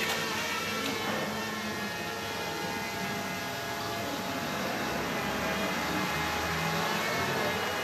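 A steady mechanical hum from a running engine or machine, with several constant tones, over outdoor noise.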